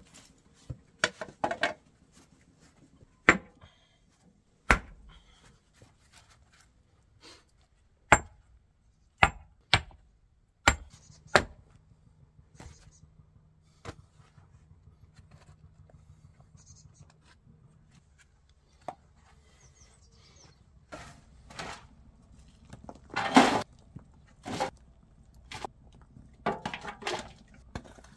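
Stone being struck during stone-path work: a dozen or so sharp, irregularly spaced knocks and clinks, with a longer, louder clatter late on.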